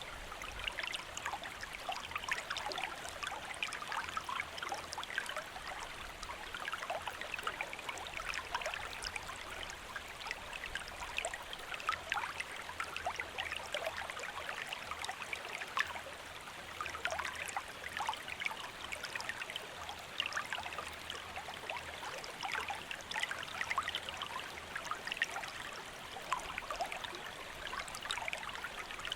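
Shallow stream flowing steadily, a continuous rushing with many small splashes and trickles.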